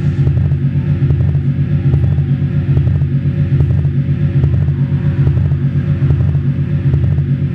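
Live electronic music: a loud, low bass drone throbbing about three to four times a second, with faint clicks on each pulse.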